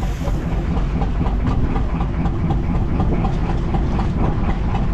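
Fishing boat's engine running steadily: a low rumble with a fast, regular beat.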